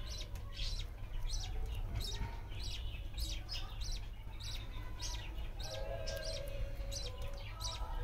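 Budgerigars chirping: short high chirps about twice a second, over a steady low hum.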